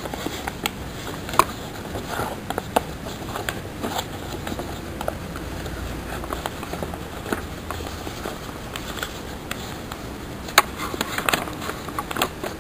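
Sheet of paper rustling and crackling as hands fold, crease and press it into shape, with scattered sharp crinkles, the loudest about a second and a half in and near the end.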